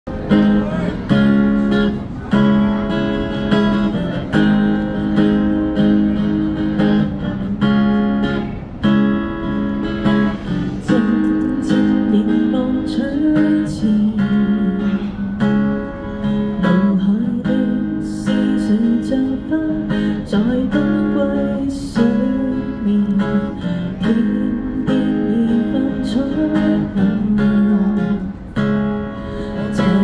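Acoustic guitar played in a steady flow of strummed chords and picked notes.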